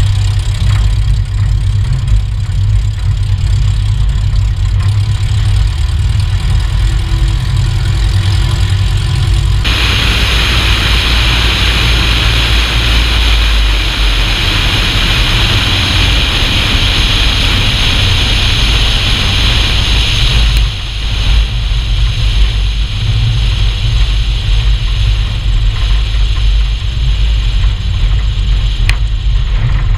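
Van's RV-7 light aircraft on landing rollout: steady engine and propeller drone over a heavy low rumble from the main gear and airflow. About ten seconds in the sound changes abruptly and a loud hiss is added, then it drops back to the plain drone and rumble about twenty seconds in.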